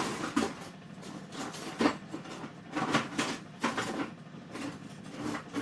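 Kitchen clatter of cupboard doors, drawers and dishes being handled: a string of irregular knocks and clinks, a few of them sharp, over a steady low hum.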